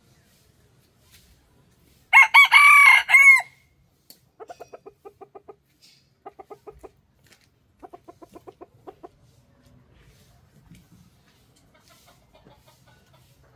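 A rooster crows once, a loud crow of a little over a second that bends down at its end. It is followed by three short runs of rapid clucking.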